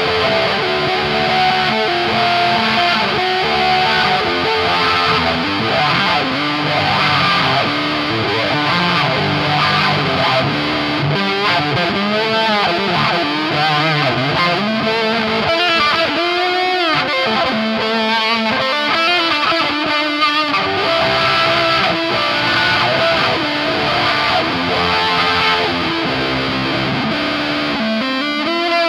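Electric guitar played through a Dolamo D-2 fuzz pedal and a Dunlop 535Q mini wah: a fuzzy, distorted lead line whose tone sweeps up and down with the wah, most strongly in the middle of the stretch.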